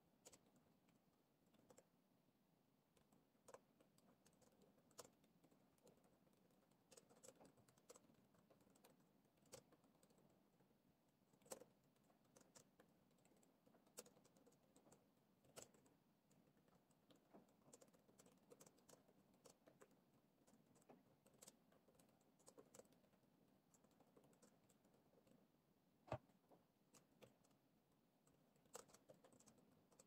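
Faint typing on a laptop keyboard: a run of irregular soft key clicks with a few sharper taps, the sharpest near the end.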